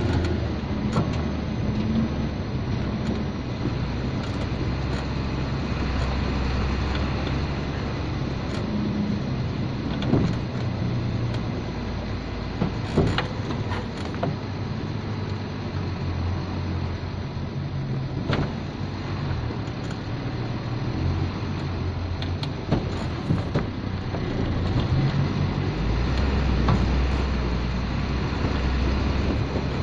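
Hino truck's diesel engine running under way, heard from inside the cab with road noise, its low drone shifting in strength and pitch. There are a few sharp knocks or rattles from the cab.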